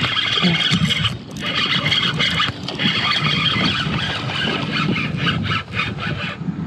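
A hooked northern snakehead being cranked in to the kayak through surface weeds: a steady rasping whir from a fast baitcasting reel retrieve, breaking off briefly twice, then a run of sharp splashes and slaps as the fish thrashes near the boat.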